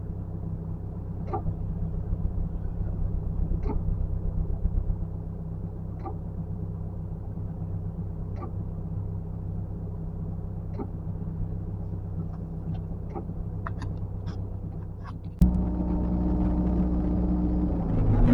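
Heavy-equipment engine running steadily with a low hum, and a faint click about every two and a half seconds. About fifteen seconds in the sound jumps suddenly to a louder, fuller engine noise.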